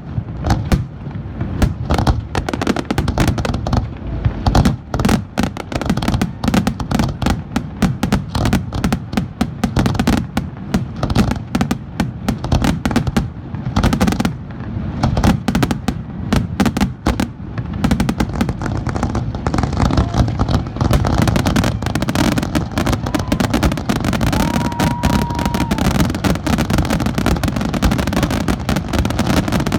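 Fireworks display: aerial shells bursting in a dense, rapid barrage of booms and crackles. A short steady tone sounds briefly near the end.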